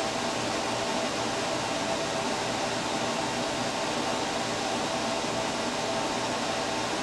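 Steady fan-like hum and hiss, with a few faint steady tones in it and no other events.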